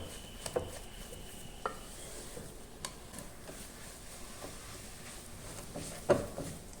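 Thick dough being stirred and scraped in a pan on the stove, with occasional knocks of the utensil against the pan. The dough is a cornmeal-and-flour mix, scalded with boiling milk and oil, that is still cooking.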